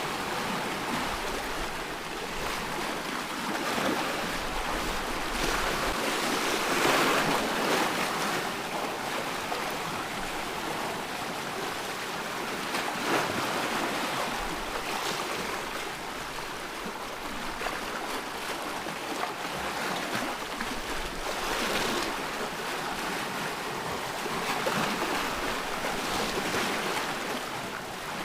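Ocean surf washing in continuously, swelling louder every few seconds as waves break, with the strongest swell about a quarter of the way in.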